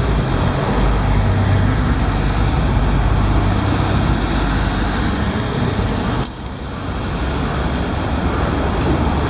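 Scania 113M truck's diesel engine running under load as the truck drives off, a steady low rumble with road noise. About six seconds in, the sound breaks off and drops briefly, then picks up again.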